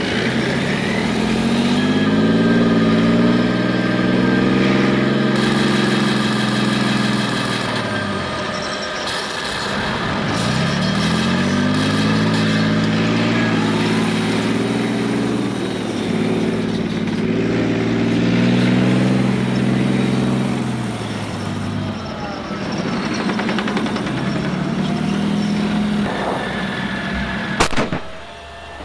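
An RC M1 Abrams model tank's sound unit plays a simulated engine sound through its small speaker. The engine note revs up and falls away about four times as the tank is driven. A single sharp crack comes near the end.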